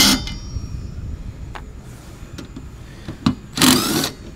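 Cordless drill with a 14 mm socket spinning a windshield wiper arm nut loose, in two short whirring runs: one right at the start and a longer one of about half a second near the end. A few light clicks come between the runs.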